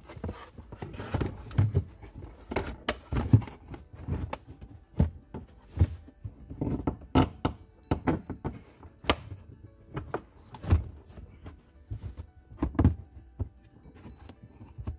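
BMW E92 boot side trim panel, felt-covered plastic, being handled and pressed into place: a series of irregular knocks and thunks as it is seated and clipped in.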